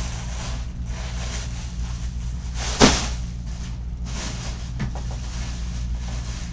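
A single sharp bang about three seconds in, with a fainter knock a couple of seconds later, over a steady low hum.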